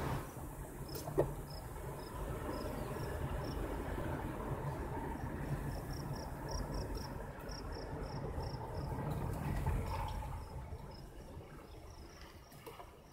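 Vehicle road and engine rumble heard from inside the cab while driving, easing off over the last few seconds. Above it, insects chirp in short high pulses a few times a second. There is one sharp click about a second in.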